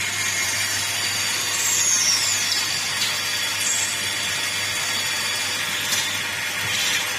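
CNC milling machine running, a steady mechanical whir with a high whine that falls in pitch about two seconds in and a few sharp clicks.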